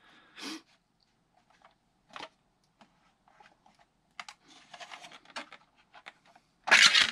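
Scattered small clicks and rattles of a 3D-printed PLA folding-pistol shell being handled and turned over, with one louder plastic clack just before the end as the folding shell is swung open.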